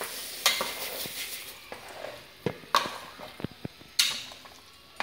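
Rice rava poured into hot water and masala in a pressure cooker, then stirred with a ladle that knocks and scrapes against the pot several times, the loudest knock about four seconds in.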